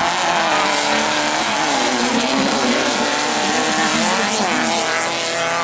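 Engines of several off-road tube-frame race buggies running hard at once, their revs rising and falling as they race through a corner.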